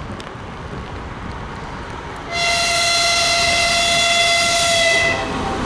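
2TE116 twin-section diesel locomotive approaching with its diesel engines running, then one long horn blast on a single steady pitch starting suddenly about two seconds in and lasting nearly three seconds before it cuts off.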